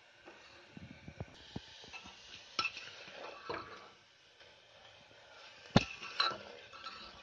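Metal spoon scraping and knocking against the inside of a metal pressure cooker as fried onions are stirred, in scattered clinks with one sharp clank near six seconds in.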